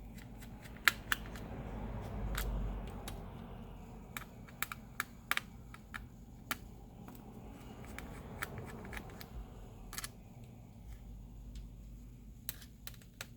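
Small screwdriver taking out the screws that hold a laptop battery, with irregular sharp clicks and taps of the tool and screws on the laptop's case. A low handling rumble swells about two seconds in.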